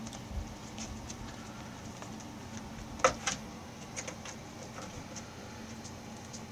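A kitten playing with a small catnip toy on carpet: faint scattered taps and scuffs from paws and toy, with two sharper clicks about three seconds in, over a faint steady hum.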